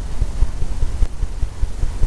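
Paintbrush working the surface of a pre-stretched canvas, which sounds as a quick, uneven run of low thuds, several a second.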